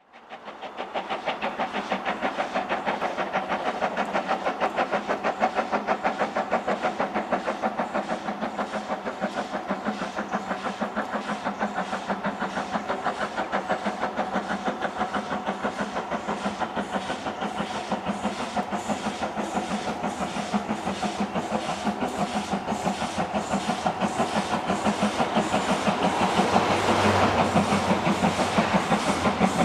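Stanier 8F 2-8-0 steam locomotive No. 48624 working a train up a bank: a steady, even chuff of exhaust beats, about four or five a second, growing louder near the end as it approaches.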